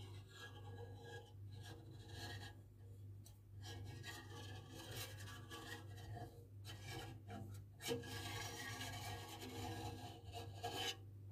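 A knife is drawn through set rennet curd in a stainless steel pot, scraping and rubbing against the pot's side in a series of strokes. This is the cutting of the curd in cheesemaking.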